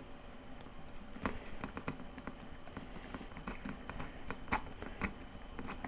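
Faint, irregular clicks and ticks of a precision screwdriver driving small screws into the plastic motor housing of a Ninja food chopper, with handling taps of the parts.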